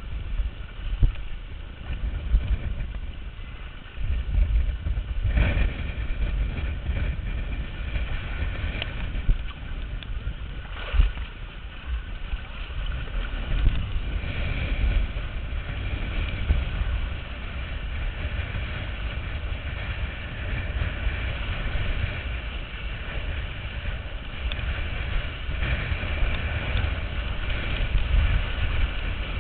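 Wind buffeting the microphone of a camera mounted on a windsurf boom, with water rushing against the board as it sails across choppy water. A low rumble runs throughout, with a few short thuds.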